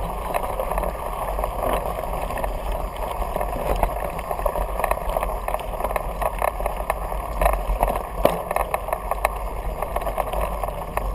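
Mountain bike riding up a rocky gravel dirt trail: a steady rumble of tyres and bike with scattered clicks and knocks from the stones.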